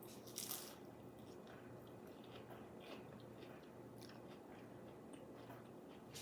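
Faint chewing of food by a person eating, with a short louder bite about half a second in and scattered small mouth clicks after.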